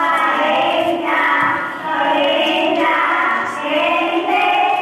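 A class of young children chanting together in drawn-out, sing-song voices, played back from a classroom video over loudspeakers.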